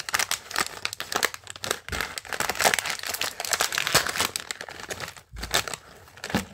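Printed plastic blind bag of doll accessories crinkling as hands pull it open: a dense, irregular run of crackles with a brief lull about five seconds in.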